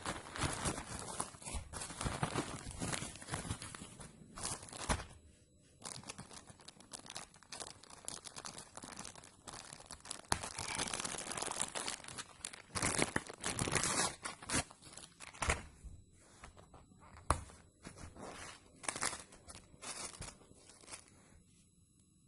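Irregular crinkling and tearing rustles, with scattered clicks, as a screwdriver kit and its packaging are handled and unwrapped. The sound dies away near the end.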